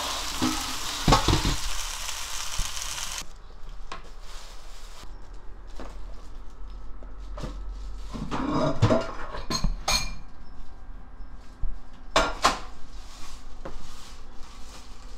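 Stir-fried dried zucchini sizzling in a frying pan for about the first three seconds, with a couple of knocks from a utensil, then it cuts off. After that come scattered clinks and knocks of utensils against dishes.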